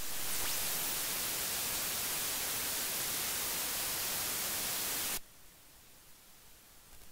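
Steady hiss of static from a cheap lavalier microphone's feed while its wearer walks away from the camera to test its range, cutting off suddenly about five seconds in.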